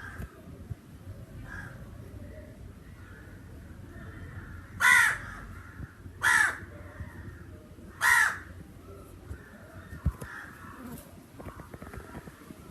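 Crows cawing: three loud, harsh caws about a second and a half apart in the middle, with fainter caws from other crows further off before and after.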